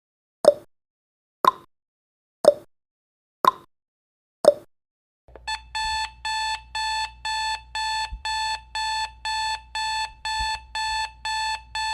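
Countdown timer's sound effect: ticks once a second, alternating higher and lower, for the last few seconds. Then, about five seconds in, an alarm-clock beeping starts at about two beeps a second, signalling that the countdown has reached zero.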